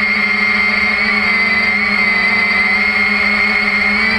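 Steady whine of a 3DR IRIS+ quadcopter's four electric motors and propellers in flight, picked up by its onboard camera, with several held tones that waver slightly in pitch as the motors adjust speed.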